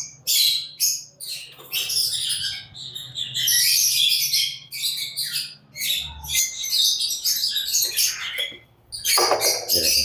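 Lovebirds chattering: a dense, continuous stream of rapid, high-pitched chirps and shrill calls, with a stronger call near the end. A low, steady hum runs underneath for about the first six seconds.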